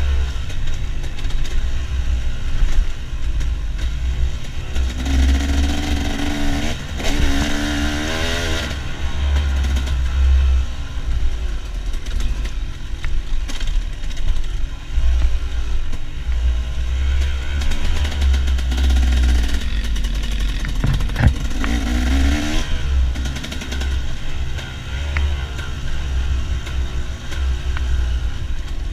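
KTM trail dirt bike engine running while riding single track, revving up and down with the throttle, with bursts of higher revs about five to eight seconds in and again past twenty seconds. A heavy low rumble sits under it throughout.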